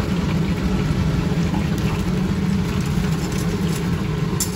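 Battered chicken skewers sizzling in a deep fryer's hot oil, over a steady low hum.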